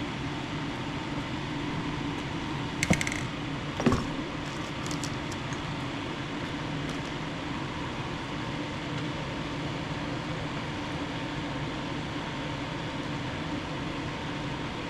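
Steady mechanical hum like a fan or air conditioner running, with two short clicks about three and four seconds in.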